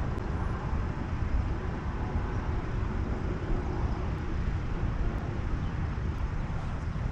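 Wind buffeting the camera's microphone: a steady, fluttering low rumble under a faint outdoor hiss.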